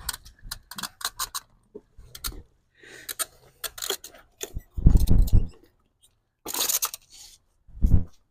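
Light metallic clinks and taps of parts and tools being handled, with a heavier knock about five seconds in, a short scrape, and another knock near the end.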